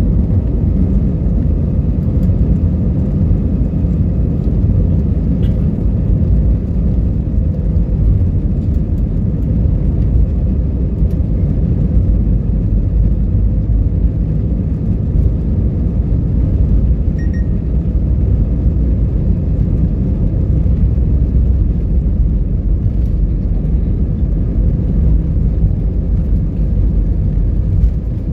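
Steady low rumble inside the cabin of an AirAsia Airbus A320 rolling on the ground: jet engine noise and the wheels on the pavement.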